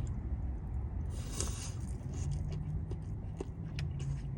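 A bite into breaded chicken katsu and quiet chewing, with a short crunch about a second in and faint clicks after, over a steady low hum.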